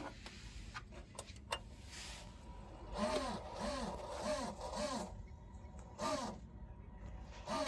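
A few light clicks and knocks, then a pigeon cooing: four short coos that rise and fall in pitch, about two a second, followed by two single coos.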